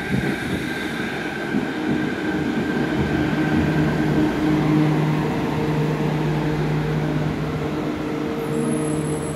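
Fukuoka City Subway Nanakuma Line linear-motor train pulling into an underground station and braking to a stop, a running rumble with steady humming motor tones. A faint high squeal comes in near the end as it comes to a halt.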